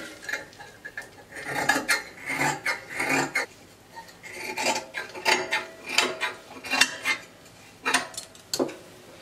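Fabric scissors cutting through Ankara cotton print folded into four layers: an irregular run of snips.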